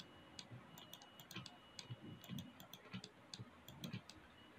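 Near silence with faint, irregular clicking of a computer mouse.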